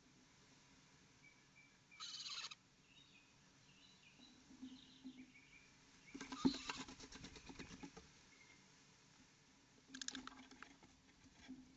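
Owlets scrabbling and shuffling inside a wooden nest box, their claws scratching on the wood and the shavings. The sound comes in three bursts: a short one about two seconds in, a longer, louder one in the middle, and another near the end.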